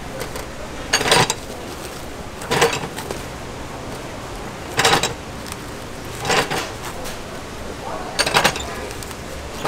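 Five sharp clattering knocks, each a quick cluster of strikes, about one every one and a half to two seconds, over steady background noise.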